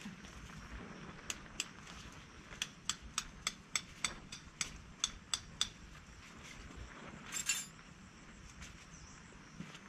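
A series of about a dozen light, sharp taps or clicks at an uneven pace of roughly two to three a second, followed a couple of seconds later by a brief rustling scrape.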